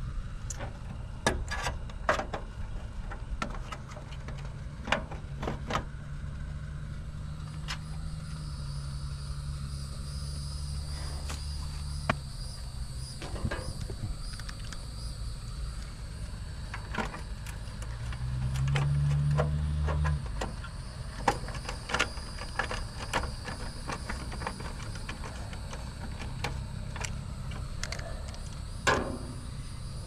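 A steady low machine hum with many scattered clicks and knocks of handling. The hum swells briefly about two-thirds of the way through, then drops back, and a faint high steady tone sets in about a quarter of the way in.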